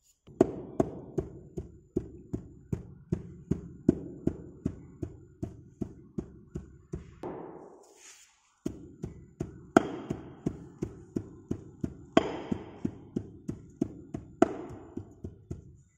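Hand rammer striking moulding sand packed in a moulding box: a steady run of dull thuds, about two and a half a second, pausing briefly about halfway, as the sand is rammed firm around the pattern.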